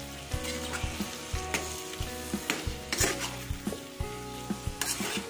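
Metal spatula stirring fried taro slices through sizzling masala in a steel kadai, with irregular scrapes and clinks of the spatula against the pan over the hiss of the frying oil.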